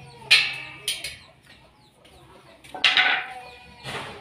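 Domestic chickens clucking and squawking in several short, loud calls, the loudest about a third of a second in and around three seconds, with faint clinks of the slotted steel angle frame being moved.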